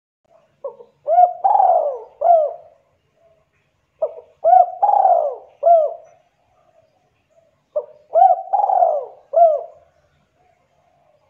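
Spotted dove cooing: three repeats of the same phrase of a short note followed by arching coos, about three and a half seconds apart.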